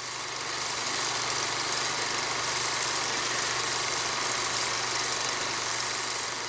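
Steady mechanical whirring and clatter like a running film projector, from an end-card sound effect. It fades slowly near the end.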